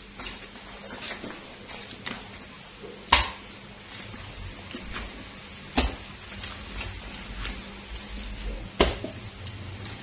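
Bread dough being kneaded by hand on a stone countertop, slapped down hard onto the counter three times, roughly every three seconds, with fainter handling noises between.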